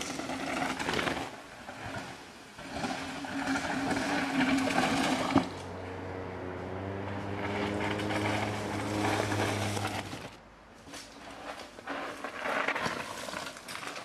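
Mountain bike riding down a forest dirt trail: tyres rolling and crunching over dirt and brushing through undergrowth, with a sharp knock about five seconds in. A steady mechanical buzz follows for about four seconds, then patchier rolling noise over rough ground.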